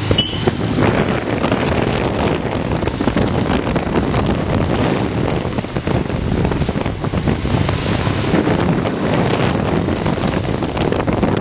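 Wind rushing over the microphone of a moving Suzuki 500 motorcycle, with the bike's engine running underneath.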